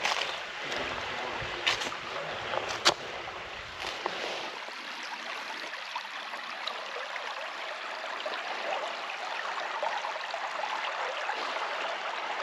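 Shallow creek flowing over a rocky streambed, a steady rushing and trickling of water. A few sharp clicks in the first three seconds.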